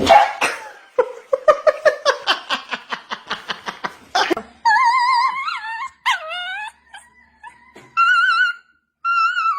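A dog yipping in a quick, even run of about five yips a second, then giving high, wavering whines for the rest of the time.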